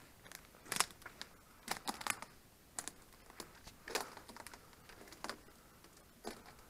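Irregular crunching and crackling of footsteps on dry leaf litter and twigs, with small branches snapping and brushing while someone pushes through dense undergrowth.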